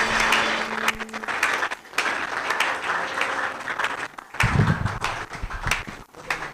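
Congregation clapping in welcome, a dense patter of many hands, with a short low thud about four and a half seconds in.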